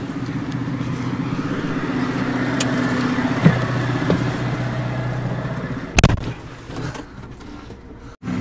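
Valtra tractor's diesel engine running steadily, with a sharp click about three and a half seconds in. About six seconds in comes a loud slam, like the cab door shutting, and the engine is then heard much quieter and muffled, as from inside the closed cab.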